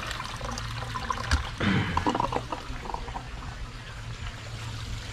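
Water pouring and trickling into a garden pond, briefly louder and choppier about a second and a half in.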